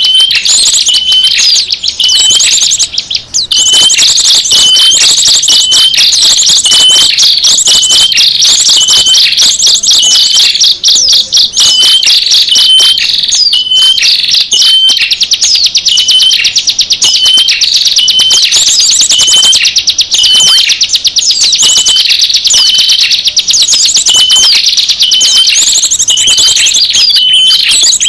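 A bird-lure (pikat) recording for small birds: loud, dense, high-pitched twittering and chirping. A short chirp note repeats about twice a second over a rapid trill.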